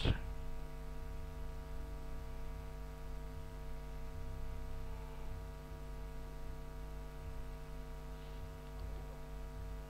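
Steady electrical hum: a set of constant tones over a low rumble, with no other events.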